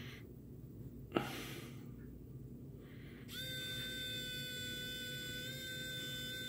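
A sharp click about a second in, then a small electric pen screwdriver starts a bit over three seconds in and runs with a steady whine, spinning a wind-up flashlight's tiny DC motor so that it works as a generator.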